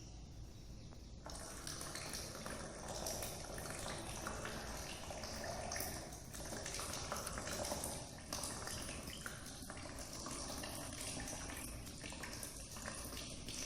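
Salt water from a jal neti pot pouring into one nostril and running out of the nose, an irregular trickling and splashing that starts about a second in.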